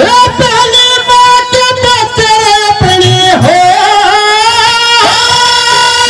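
Live Haryanvi ragni folk music: a melody of long held notes that bend in pitch, with drum strokes joining in about halfway through.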